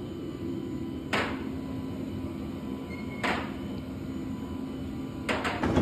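Steady low hum with a few sharp knocks or clacks: one about a second in, another about two seconds later, and a quick cluster near the end.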